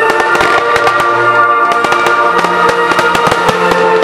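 Film-score music playing steadily while many firework shells and mines go off over it in quick succession, a dense run of sharp bangs and crackles.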